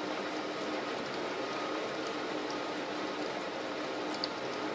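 Steady rush of water from a test spray playing on a window during a water leak test, with a couple of faint ticks about four seconds in.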